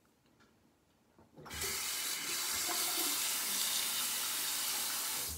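Bathroom sink tap turned on about a second and a half in, water running steadily into the basin, then shut off suddenly near the end.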